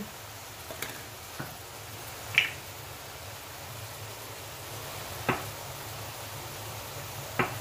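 Vegetables sizzling gently in a frying pan, a steady soft hiss, with a few sharp clicks of a metal slotted spoon against the pan; the loudest click comes about two and a half seconds in.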